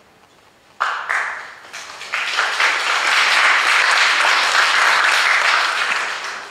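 Audience applause breaking out about a second in, swelling into steady clapping and tailing off near the end.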